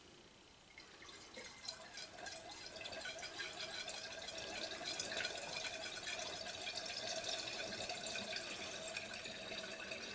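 Distilled water pouring from a plastic gallon jug into the fill port of a CW-5000 laser water chiller's reservoir, starting about a second in and running steadily.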